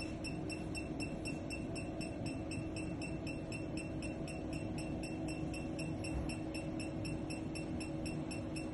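Shining Bright facial laser machine beeping quickly and evenly, about five short high beeps a second as it fires its pulses, over a steady low hum from the machine.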